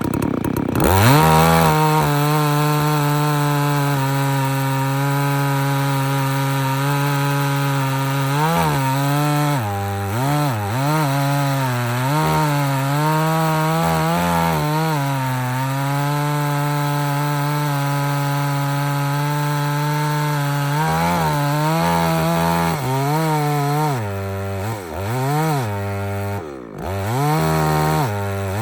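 Farmmac F380W two-stroke chainsaw revving up about a second in, then running at high speed through a milling cut along a log. Its pitch sags and recovers again and again as the chain loads up in the wood, most often in the second half.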